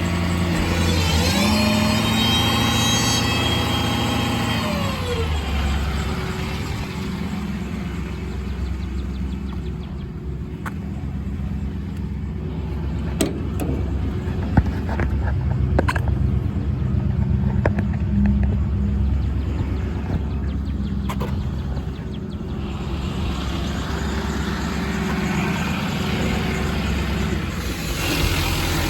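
Ford F-550's 6.7 Power Stroke V8 diesel running; the engine speeds up about a second in and drops back near five seconds, then runs steadily. Scattered clicks come through the middle, and a hiss rises near the end.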